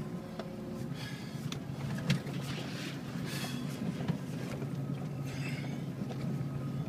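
Ford Bronco's engine running steadily under load as it climbs a steep dirt hill, heard from inside the cab. Scattered knocks and rattles come from the truck jolting over the ruts.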